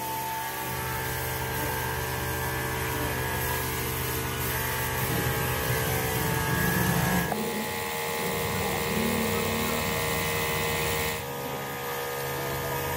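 Machine-shop machinery running with a steady drone made of several steady tones and a noisy hiss. The sound changes abruptly about seven seconds in and again about eleven seconds in.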